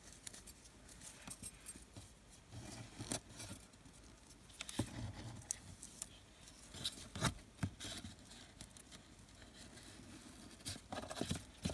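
Faint handling sounds of braided Venetian blind cord being pulled and wrapped around fingers: soft rubbing with scattered small clicks and ticks.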